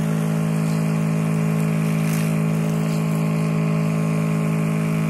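Kärcher OC 3 portable cleaner's electric pump running steadily as its spray gun jets water onto stone paving: an even, unchanging motor hum with the hiss of the spray.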